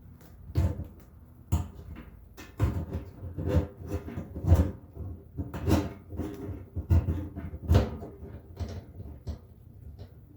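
Fuel pump and filter assembly being worked into a steel gas tank: a string of irregular knocks and clunks with a short ring, about a dozen, the loudest near the middle.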